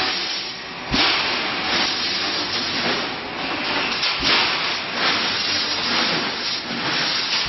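Wire mesh welding machine running, a steady hissing noise with sudden surges about a second in and again near four seconds.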